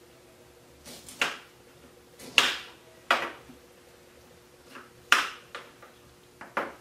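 Kitchen knife cutting through pineapple and striking a cutting board: a series of sharp, irregular knocks, a second or so apart. A faint steady hum lies beneath.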